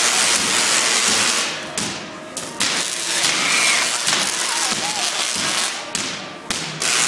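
Giant Van de Graaff generator making artificial lightning: a loud, continuous crackle of spark discharges that cuts out suddenly for a moment a few times.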